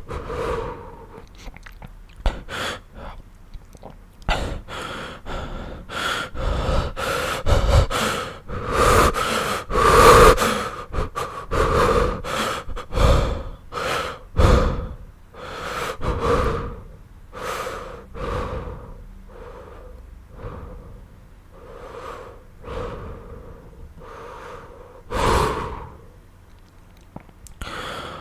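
A sick man breathing heavily and raggedly, with wheezy, gasping breaths at an uneven pace, about one every second or two. The breaths are loudest around the middle.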